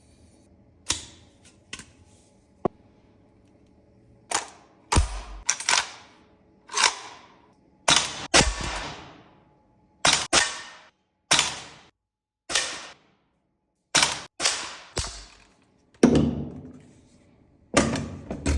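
VFC AK74M gas blowback airsoft rifle firing single shots, each a sharp crack with a short ringing tail, about one a second with some in quick pairs. A few light clicks come before the first shot.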